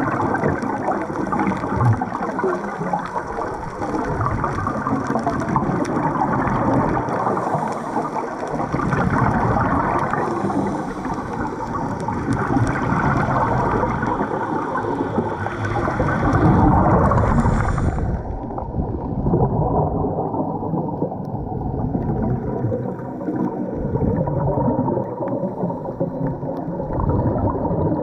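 Water gurgling and sloshing over a GoPro HERO8 Black's waterproof body, a steady churning rush. About two-thirds of the way through the sound suddenly turns muffled and dull, losing its higher part, as heard from underwater.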